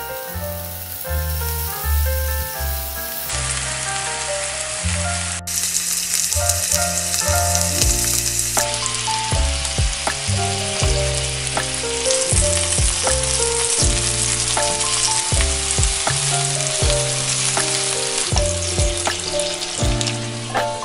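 Meat-stuffed bitter melon (goya) frying in a pan: a steady sizzle with scattered small pops, louder after an edit about five seconds in. Background music with a melody and bass line plays throughout.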